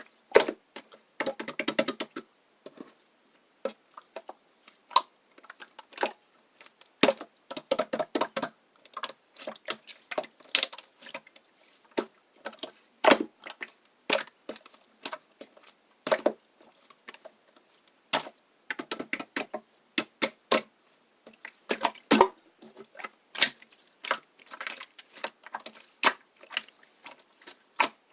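Slime being pressed and squished, giving irregular sharp clicks and pops, some in quick runs of several.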